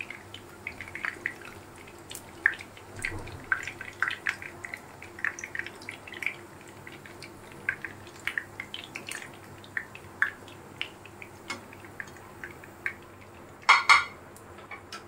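Hot oil sizzling and crackling in a frying pan as beef kababs finish shallow-frying, with irregular small pops throughout. Two loud sharp clatters come near the end.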